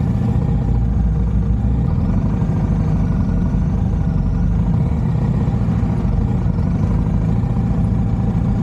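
Motorcycle engine running at a steady, even pitch while riding.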